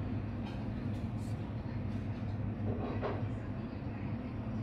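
Steady low rumble of commercial kitchen equipment around the stove, with a short clatter about three seconds in as a plate is set on the pan.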